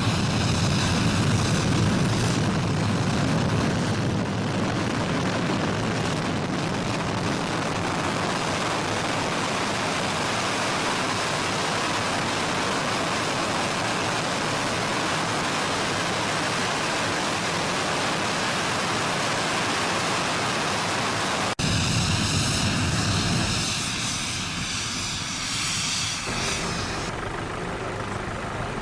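Jet airliner engines at takeoff thrust: a loud, steady rushing noise. About two-thirds of the way through it breaks off abruptly and resumes with a swirling, phasing quality that slowly fades a little.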